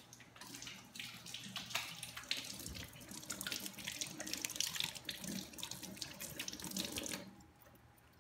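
Kitchen tap running into a stainless-steel sink while hands are washed under the stream. The water stops near the end.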